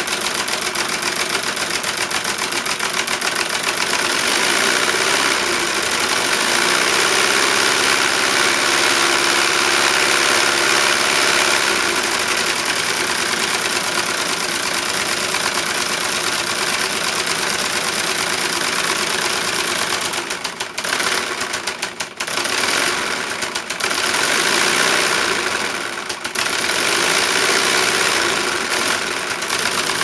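Homemade electric V8 model engine running steadily, giving a rapid, even mechanical clatter. The sound drops briefly a few times in the last third.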